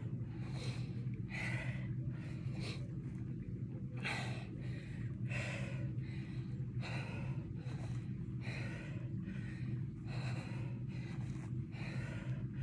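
A woman breathing hard from exertion during lunges: quick, sharp breaths in and out, roughly one every half second to second, over a steady low hum.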